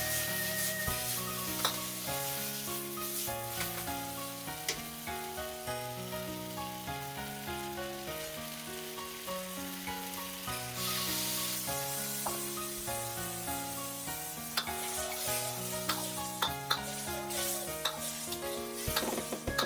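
Tomato and egg stir-frying in a hot pan: a steady sizzle that swells for a moment about halfway through, with a spatula scraping and knocking now and then. Background music with even piano-like notes plays throughout.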